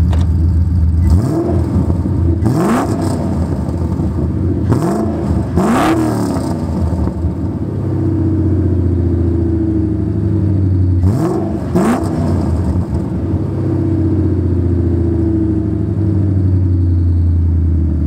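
Ford Mustang GT's 4.6-litre two-valve V8 idling through its exhaust, blipped into short revs several times, each rising and falling back to idle.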